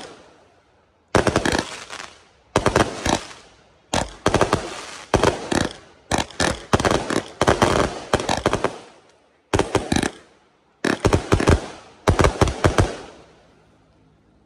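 A 398-shot assorted firework repeater cake firing in rapid volleys of loud bangs, about one volley every second or so, each dying away before the next. The last volley fades out near the end.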